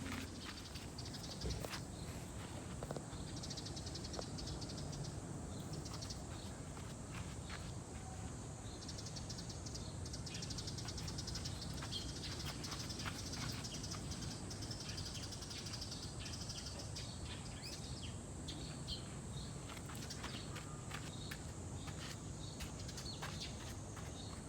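Cicadas singing in summer heat: a steady high-pitched drone, with stretches of faster pulsing song swelling in and out over a low background rumble.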